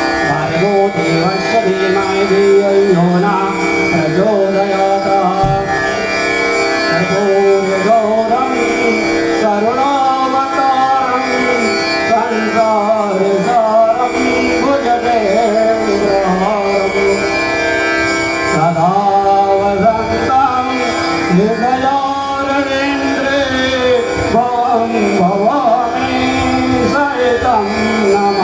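A man's voice singing a Sanskrit devotional hymn into a microphone, amplified, in long melodic phrases that glide up and down over a steady drone.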